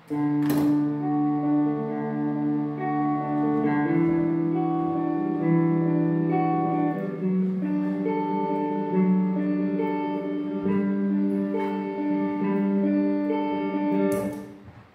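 Electric guitar played through a valve amplifier and effects pedals, sustained notes layered over one another into a slowly shifting chordal texture. It comes in abruptly and fades out near the end.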